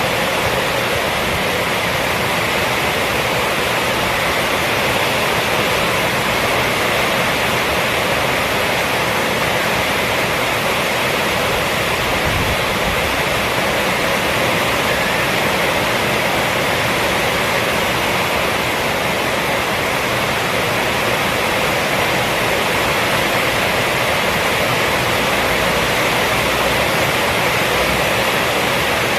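Heavy rain falling steadily on a roof, an even, unbroken hiss with no separate drops or thunder standing out.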